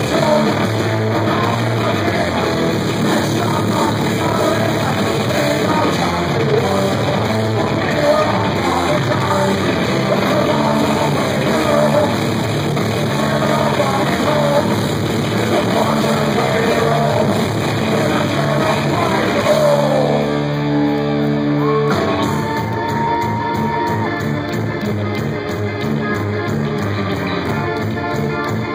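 Live rock band playing loudly, with bass guitar, drums, keyboard and sung vocals, heard from the audience in a concert hall. About twenty seconds in, the band drops to a held chord for about two seconds, then comes back in full.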